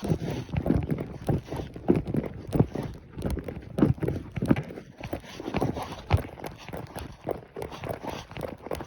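Hooves of a Mongolian horse striking the ground under a rider, an uneven clip-clop of two or three strikes a second.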